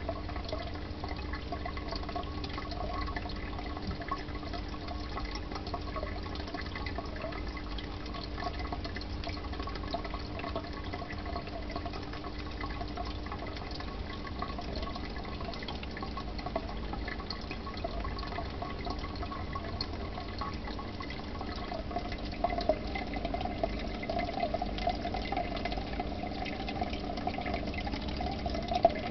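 Aquarium water bubbling and trickling steadily from the tank's aeration, over a steady hum. The water sound grows a little louder about three quarters of the way in.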